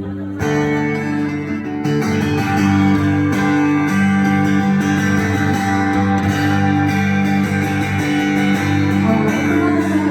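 Live band playing an instrumental passage with no singing: strummed guitars over a sustained bass line.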